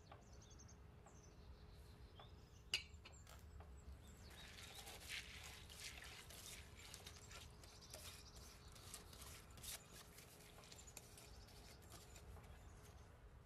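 Faint crackling patter of soaked basmati rice being poured from a glass bowl into a pot of simmering broth, lasting several seconds, after a single sharp click about three seconds in. A faint steady hum sits underneath.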